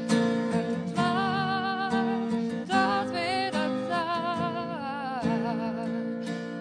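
A young woman singing a slow ballad with vibrato, accompanied by her own strummed steel-string acoustic guitar, with strums about once a second. Her voice slides down in pitch about five seconds in.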